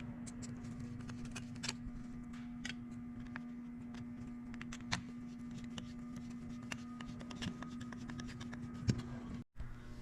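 Scattered light clicks and taps of small metal parts and tools being handled, over a steady electrical hum. The sound cuts out for a moment near the end.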